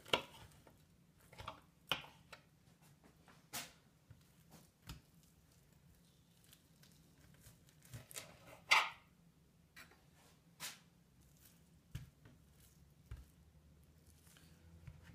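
Kitchen knife cutting raw chicken breast and tapping on a plastic cutting board, with the soft wet sounds of the meat being handled: scattered short taps and scrapes at irregular moments, the loudest about nine seconds in.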